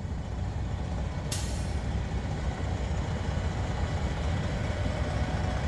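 Detroit diesel in a Peterbilt 389 glider kit truck idling with a steady low rumble. A short burst of air hiss from the truck's air system comes about a second and a half in.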